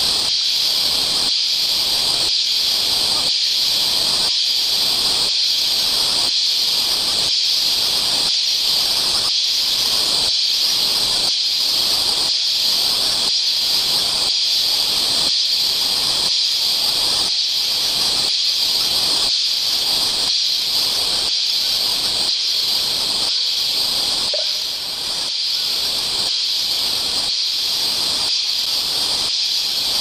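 A dense chorus of a huge flock of birds calling all at once, merging into a steady high hiss that pulses about once a second.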